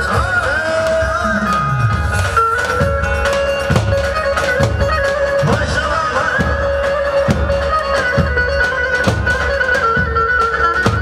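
Turkish folk dance music for a halay: a davul bass drum beats deep strokes about once a second, with sharp stick clicks between them, under a steady, high reedy wind-instrument melody.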